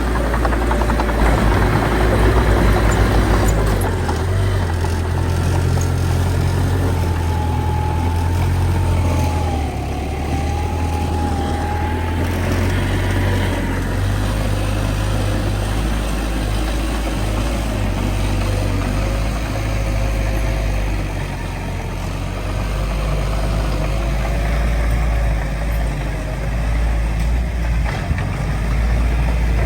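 Heavy diesel earthmoving machinery running steadily with a deep engine rumble, its pitch shifting a little as the load changes, and a faint wavering whine above it.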